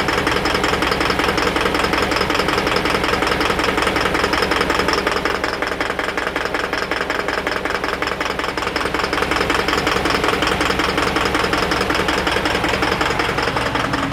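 Isuzu NPR truck engine running with a steady, rapid knock. The check-engine code P0202 points to an injector circuit fault on cylinder 2, which the owner puts down to a lost connection.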